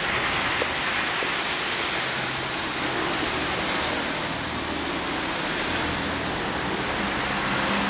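A steady, even rushing hiss that cuts in abruptly and holds at one level throughout.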